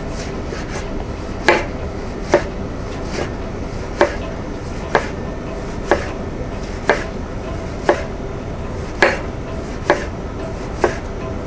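Kitchen knife slicing a raw artichoke as thinly as possible on a wooden cutting board, the blade knocking on the board about once a second.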